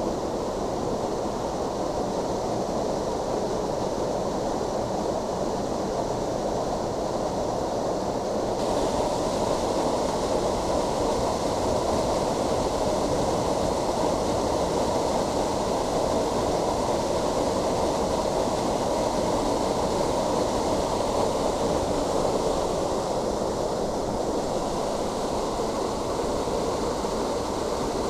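Waterfall: a steady, unbroken rush of falling water, with a slightly brighter hiss from about nine seconds in.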